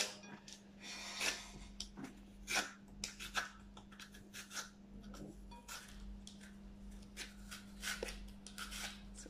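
Vegetable peeler scraping the thin brown skin off a piece of fresh coconut meat, in short, irregular strokes.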